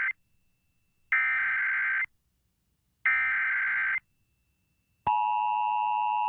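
Emergency Alert System SAME header: the end of one burst of shrill digital data, then two more bursts of about a second each, a second apart, the encoded header that opens a new alert. About five seconds in, the steady two-tone EAS attention signal starts.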